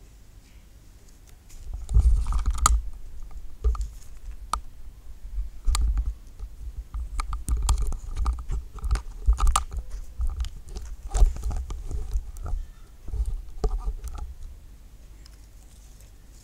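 Close, irregular crinkling and crunching of paper being folded and worked by hand, with knocks and a low rumble from the camera being handled. It starts about two seconds in and dies away a couple of seconds before the end.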